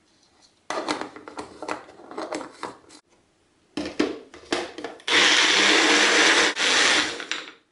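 Personal blender: the plastic cup of green peas clatters and knocks as it is handled and fitted onto the motor base, then the motor runs loudly for about two and a half seconds, with a brief break near the end, grinding the peas and a little water into a thick paste.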